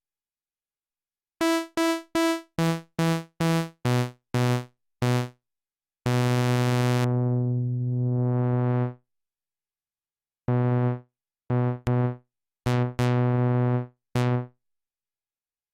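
Sequential Prophet-6 analog synthesizer played dry, without effects, one note at a time: a run of about nine short notes stepping down in pitch, then one long low note whose tone darkens and brightens again as the filter sweeps closed and open, then a few more short notes.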